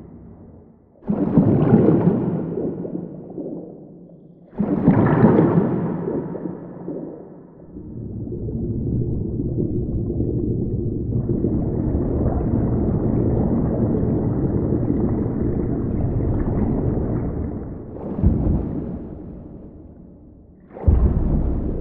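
Designed underwater sound effects: muffled water sounds, low-pass filtered and given room reverb, layered with hydrophone recordings. Two sudden splash-like hits a few seconds apart, then a long swelling wash lasting about ten seconds, a short thump, and another sudden hit near the end.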